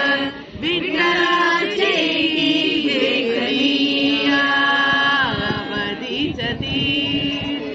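Devotional chant sung by voices, with long held notes sliding between pitches.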